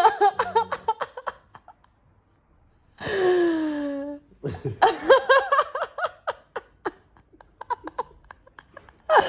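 Hearty laughter in quick repeated bursts, broken by a long falling cry about three seconds in.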